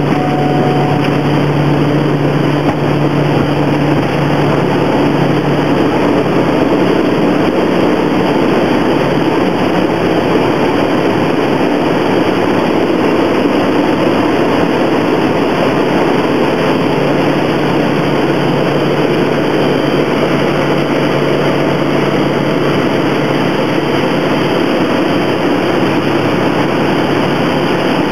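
Quest Kodiak's Pratt & Whitney PT6A turboprop engine and propeller at takeoff power, heard from inside the cockpit: a loud, steady engine-and-propeller noise through the takeoff roll, liftoff and climbing turn.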